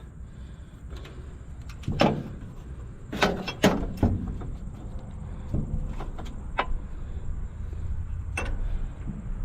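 Socket wrench working a battery cable bolt: a handful of sharp metal clicks and clinks scattered over several seconds, over a steady low rumble.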